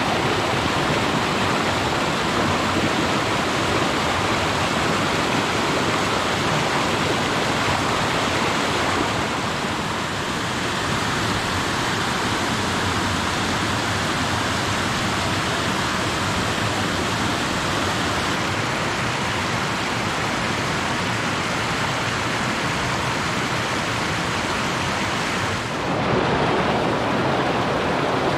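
Creek water rushing and splashing over boulders in small cascades, a steady rush that grows louder and brighter about 26 seconds in.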